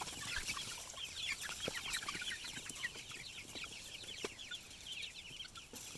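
Backyard chickens clucking and chirping, many short high calls overlapping in a steady chatter, with a few soft knocks.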